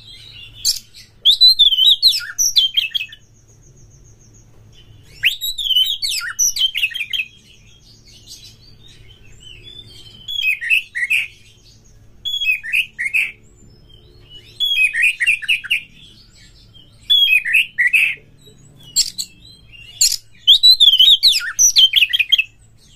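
Oriental magpie-robin singing: loud phrases of fast, varied chirps and whistles, about seven of them, separated by short pauses.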